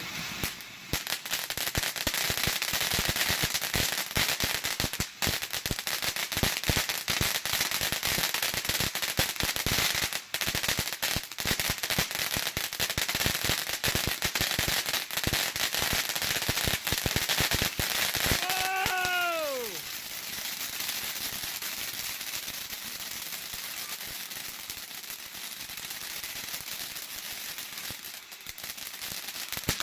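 TNT Southern Heat consumer fountain firework burning: a steady spray hiss under dense, rapid crackling. Near two-thirds through, a short whistle falls in pitch, and the crackle eases a little after it.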